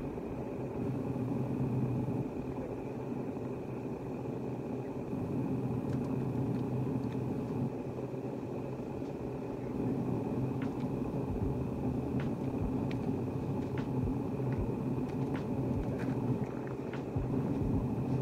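A steady low rumble with a faint, steady high whine above it, and scattered faint clicks from about six seconds in.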